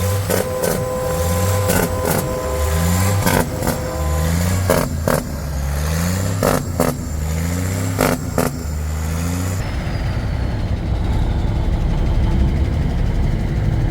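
Cummins 400 Big Cam inline-six diesel engine pulling a bus through the gears: its pitch climbs and then drops back at each shift, several times over, with a few sharp knocks along the way. About ten seconds in, the sound changes abruptly to a steady low engine drone.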